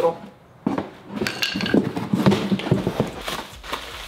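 A cardboard box being opened with a box cutter: a short scrape as the blade slits the tape, then irregular knocks and cardboard rustling as the flaps are pushed open, and plastic wrapping rustling as a wrapped fishing rod is lifted out near the end.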